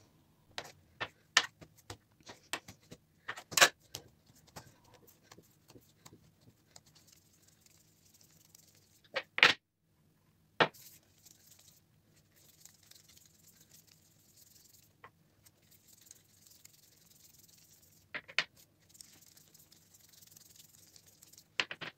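Metal dough scraper cutting through dough onto a granite countertop: a quick series of sharp taps on the stone in the first few seconds, then a few scattered knocks as the dough pieces are handled, two louder ones about ten seconds in.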